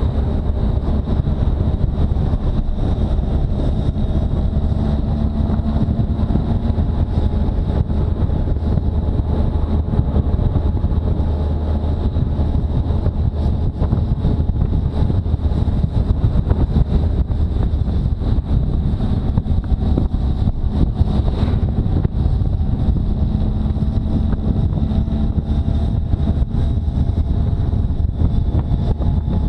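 Motorcycle engine running at a steady cruising speed of about 65 km/h, mixed with wind noise on the microphone.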